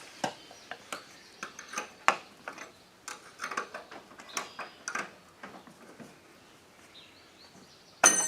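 Irregular metallic clicks and clinks of a hand wrench working on a lawn mower's wheel bolt as it is tightened, thinning out after about six seconds.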